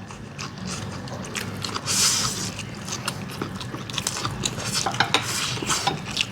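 Forks and chopsticks clicking and scraping against bowls as ramen noodles are stirred and picked up, with a brief hiss about two seconds in.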